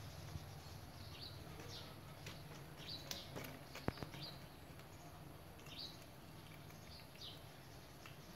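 Cats chewing fish, with a few sharp clicks about three to four seconds in, over a steady low hum. Short, faint high chirps come and go throughout.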